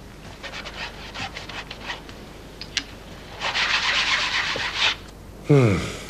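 A hand rubbing and scratching across the surface of a framed picture: a few short strokes, then a longer steady rub about three and a half seconds in. Near the end comes a short, louder sound that falls in pitch.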